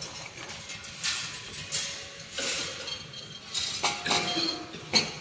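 Pneumatic wire mesh welding machine running: irregular metallic clinks and clanks mixed with short hissing bursts as the welding heads cycle, the sharpest clank near the end.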